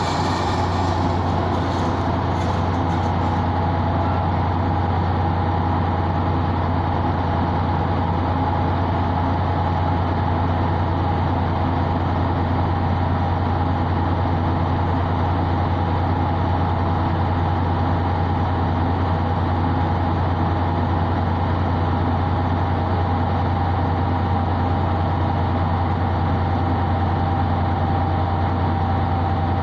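MÁV class M41 ('Csörgő') diesel-hydraulic locomotive idling steadily while stopped, a low engine drone with a steady whine above it. A hiss fades away in the first few seconds as the train comes to a halt.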